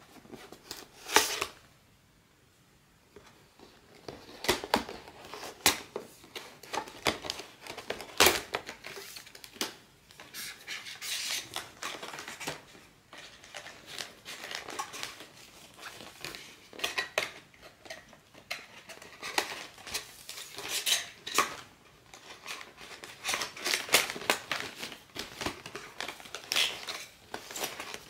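Blind-bag packaging being opened by hand: plastic wrapping crinkling and tearing, with many sharp clicks and snips. There is a short pause a couple of seconds in.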